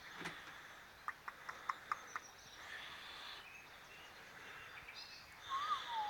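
Faint outdoor background noise with a quick run of about six light clicks about a second in, and a brief whistle that rises then falls near the end.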